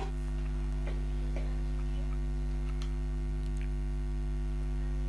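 Steady electrical mains hum, a low buzz with a ladder of overtones, with a few faint light clicks from multimeter test probes being handled.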